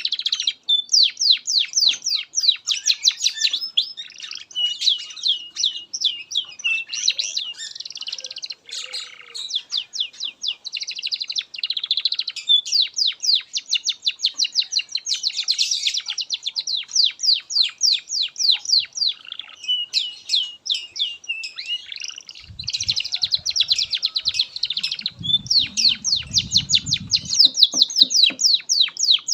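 Domestic canary singing a long unbroken song of rapid trills and rolling phrases, with a low rumble underneath for a few seconds late on.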